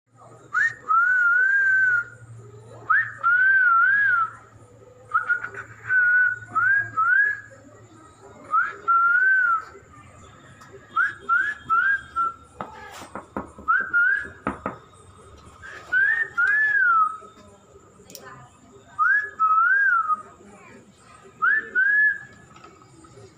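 A person whistling, calling a cat: short rising-and-falling phrases of two or three notes, repeated every couple of seconds. A few soft knocks fall near the middle.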